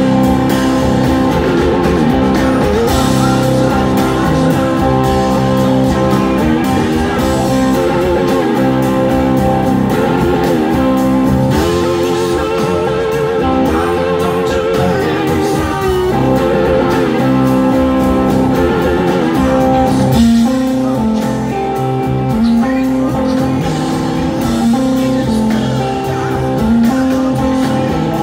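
Live blues-rock band playing at full volume, an electric guitar lead with wavering, gliding notes over the band, and a man singing in the last part.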